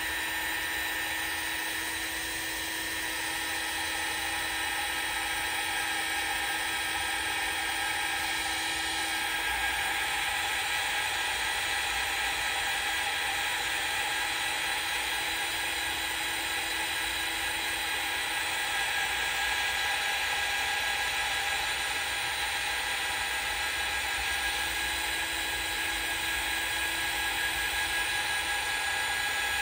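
Small craft heat gun running steadily, a high fan whine over a rush of blown air, as it dries wet acrylic paint.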